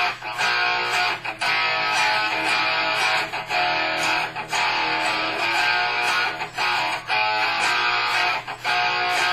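Electric guitar played through a Peavey amplifier, riffing in dense, sustained chords broken by brief stops about every second.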